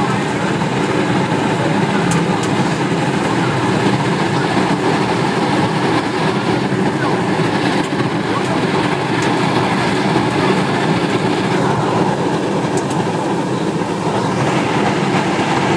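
Biomass sawdust burner firing, its flame jetting out of the outlet: a loud, steady rushing noise of combustion, with a few faint ticks.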